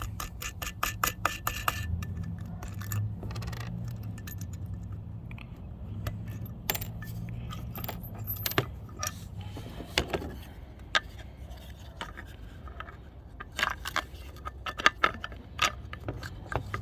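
Small metal clicks, clinks and rattles as a nut is worked off a bolt on a fog-light mounting bracket and the loose hardware is handled, with a quick run of ticks at the start and scattered clinks after.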